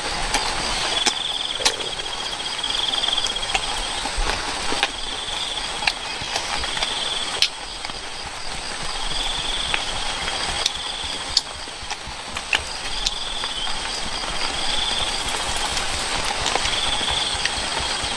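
Insects calling outdoors: short pulsed trills repeated about every one and a half to two seconds over a steady high-pitched drone, with scattered sharp clicks.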